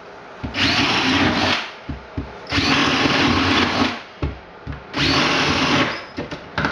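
Cordless drill boring starter holes through a plywood subfloor, running in three bursts of about a second each with short pauses between. The holes are made so a saw blade can be fitted in to cut the drain opening.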